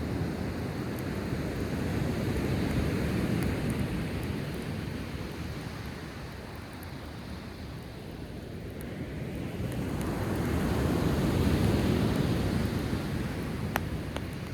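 Sea waves washing onto the shore, swelling twice and ebbing between, with a few sharp pops from a driftwood campfire.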